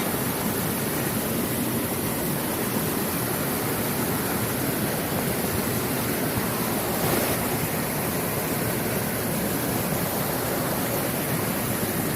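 Mountain stream water rushing steadily, an even wash of noise.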